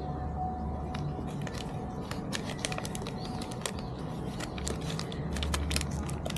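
A rapid run of small clicks and crackles, starting about two seconds in and growing denser, over a steady low rumble. A bird chirps faintly once.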